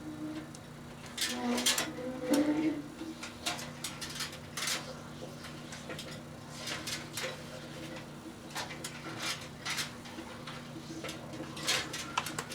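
Two microwave ovens running at once with a steady electrical hum, while the Christmas lights inside them arc and crackle in irregular sharp snaps.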